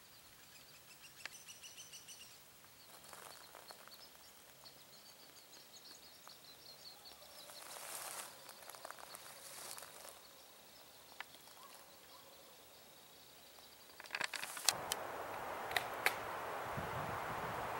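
Small birds chirping and trilling, with the crunch of steps over dry pine needles and grass. About fourteen seconds in, wind noise rises on the microphone with a few sharp clicks.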